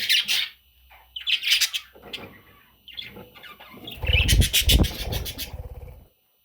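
Budgerigar chicks giving short, raspy chirping calls in bursts about a second apart. This ends in a louder stretch of rapid pulsing calls over low thuds, then cuts off suddenly about six seconds in.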